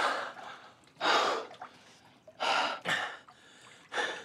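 A man gasping hard for breath in water, out of breath from swimming: four loud, ragged gasps, each about a second and a half after the last.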